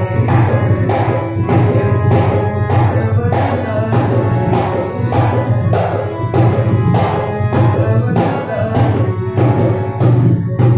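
A man singing a Hindi film song in a devotional style to harmonium accompaniment, with hand-drum percussion keeping a steady beat.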